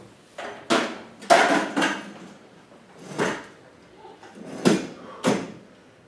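Several irregular bumps and bangs, the loudest about a second and a quarter in, with a few more near the middle and end.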